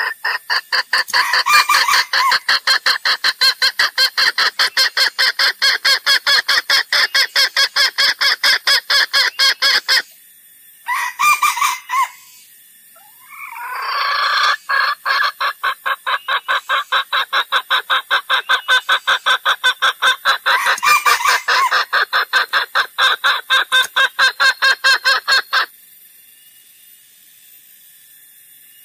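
Junglefowl calls from a trapper's lure recording: a fast, even run of clucks at about five a second, with short longer calls mixed in. The clucking breaks off near ten seconds, a brief call follows, and then it resumes and stops a few seconds before the end.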